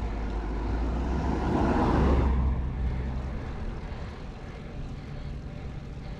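Wind buffeting the microphone of a cyclist riding a road bike, a low rumbling rush that swells about two seconds in and then eases off.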